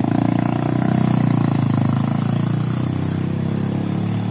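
Small engine running with a fast, even pulsing. It swells to its loudest about a second in, then eases off slightly.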